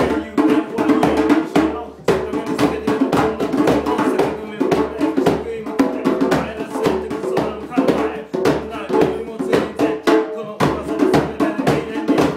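Live acoustic music: a hand drum struck with bare hands keeps a steady rhythm while a man sings over it.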